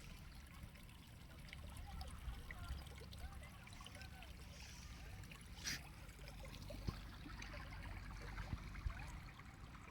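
Small stream of clear water flowing and trickling, a faint steady babble with small bubbling sounds, and one brief louder burst a little past halfway.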